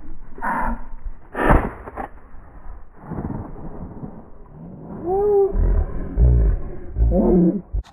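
A shotgun is fired once, a sharp crack about a second and a half in, which is the loudest thing here. Later a short wavering call sounds over low rumble from wind on the microphone.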